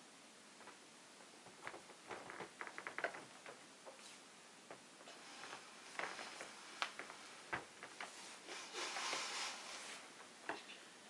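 Faint footsteps and clothing rustle as a man walks a few steps across a stage floor and goes down on one knee: scattered light clicks and knocks, then a short rustle near the end.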